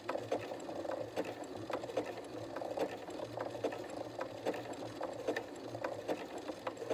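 Janome electric sewing machine running slowly, stitching a button on with a zigzag stitch set to zero stitch length: a steady motor hum with a sharp click on each stitch as the needle swings between the button's holes.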